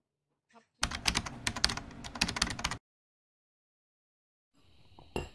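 Rapid keyboard-typing clicks, an edited-in sound effect, starting about a second in and stopping abruptly after about two seconds.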